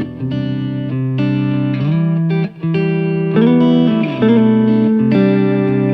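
Guitar music: sustained chords and notes changing about every second, with slight pitch bends.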